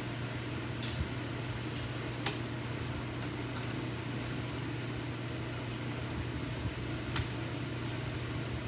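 Steady hum and hiss in the shop, with a few short sharp metallic clicks as locking clamp pliers are set and tightened on the sheet-metal letter.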